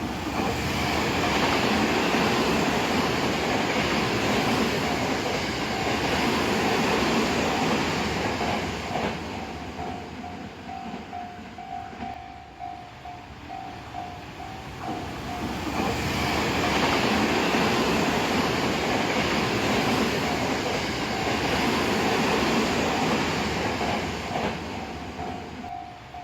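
Recorded running sound of a Tokyo Metro 15000 series electric train, swelling up and fading twice as it passes. A level-crossing alarm rings in quick repeated dings throughout.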